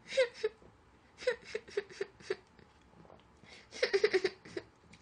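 A woman's short murmured vocal sounds and mouth noises while eating watermelon. A few quick ones come in the first couple of seconds, then a quieter stretch, then a busier cluster about four seconds in.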